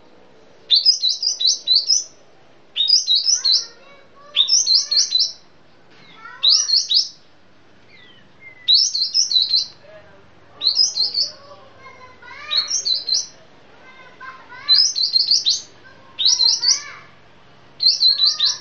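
Kapas tembak bulbul singing: short, fast bursts of high chirping notes mixed with lower sliding whistles, repeated about every two seconds with short pauses between phrases.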